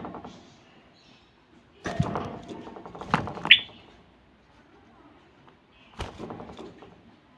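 Common bulbul moving about in a wire cage: knocks and rattles as it hops and flies against the wire, with a short whistled call about three and a half seconds in.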